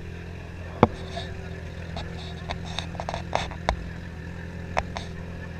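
Motorcycle engine idling steadily, with several sharp clicks and knocks over it, the loudest about a second in.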